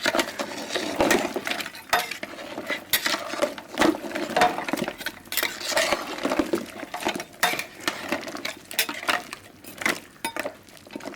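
Metal spoon stirring a thick beef curry in a pot, clinking and scraping against the pot irregularly.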